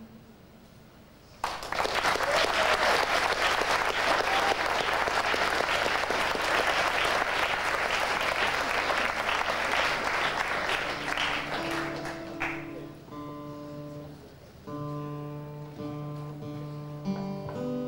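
An audience applauding, starting suddenly about a second and a half in and dying away after about ten seconds. Then a few notes and chords are picked on an acoustic guitar, with notes ringing on.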